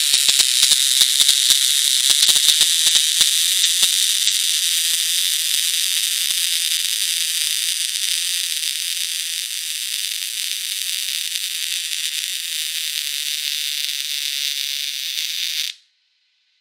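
MIG welding arc burning steadily with a crackling, frying hiss, dotted with sharp spatter pops through the first half and smoother after. It cuts off abruptly near the end when the arc is broken.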